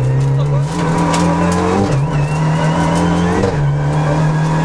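Renault Mégane N4 rally car heard from inside the cabin at speed: the engine running hard under load, its pitch climbing and then dropping sharply twice, about two and three and a half seconds in, as gears are changed.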